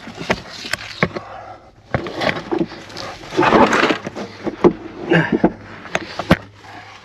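Scraping, knocks and bumps of a person squeezing and crawling through a tight gap in a small enclosed space. Sharp knocks come throughout, with a longer scrape about three and a half seconds in.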